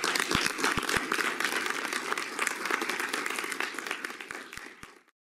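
Audience applauding: a dense patter of many people clapping, easing off slightly and then cutting off suddenly near the end.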